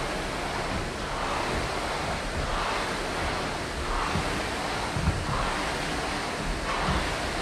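Steady rushing noise, like air across a phone's microphone, with a few faint low thumps of feet and knee landing on a rubber gym floor during barbell walking lunges; one thump about five seconds in is the loudest.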